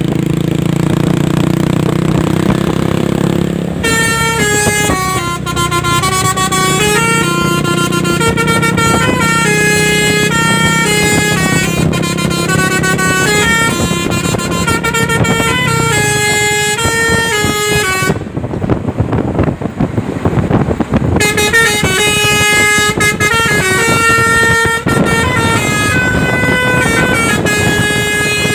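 Truck's telolet basuri multi-tone air horn playing a melody, note after note in quick steps. A low drone comes before the tune in the first few seconds. Around two-thirds of the way through the tune breaks off for about three seconds, leaving only a low uneven rumble, then picks up again.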